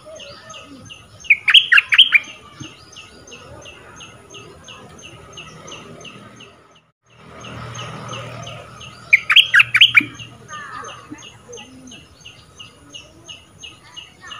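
Caged decoy songbird calling: a steady string of short high chirps, about four a second. Two louder bursts of quick, sharp calls come about a second and a half in and again about nine seconds in. The sound drops out briefly near the middle.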